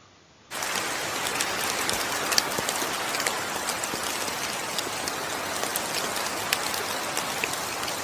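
Steady rain falling, a dense hiss with many small sharp ticks of single drops. It starts suddenly about half a second in.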